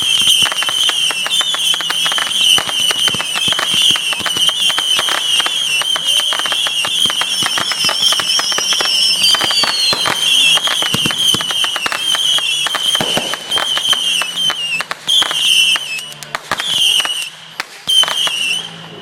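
Fireworks going off in a dense, rapid barrage of crackling pops and bangs that thins out over the last few seconds, over a high, wavering whistle.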